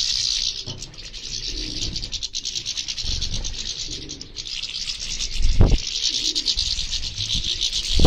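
A flock of European goldfinches and Eurasian siskins twittering and chattering together: a dense, steady high twitter with no pause. A brief low thump comes about five and a half seconds in, and another at the very end.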